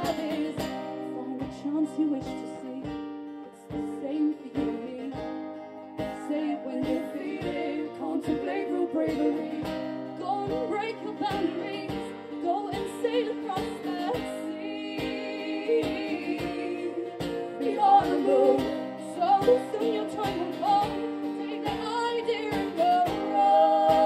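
Live acoustic-guitar band music: guitars strummed to a steady beat about twice a second, with brief wordless vocal lines in places.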